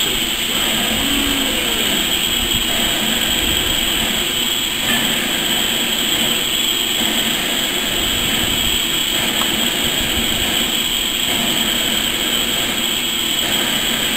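Steam locomotive standing with a steady hiss of escaping steam.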